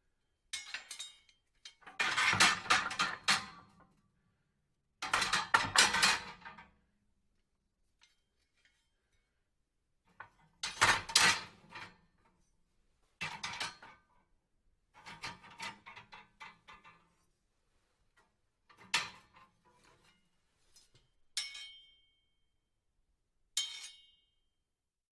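A series of about nine separate clattering, clinking bursts, like hard dishes or metal utensils knocked together. Each lasts a second or two, with dead silence between. The last two end in a short, bright ringing tone.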